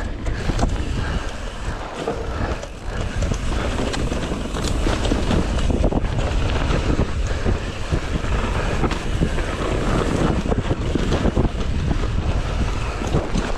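Mountain bike ridden fast down a dirt singletrack: wind rushing over the microphone, the tyres rumbling on the dirt, and many small knocks and rattles from the bike over the bumps.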